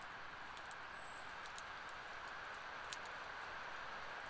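Campfire crackling softly: a scatter of small sharp pops over a steady hiss.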